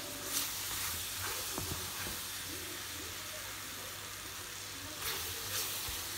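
Pineapple pieces cooked down in sugar syrup sizzling steadily in a nonstick pan, with a wooden spoon stirring and scraping through them; a few louder scrapes about half a second in and again near the end.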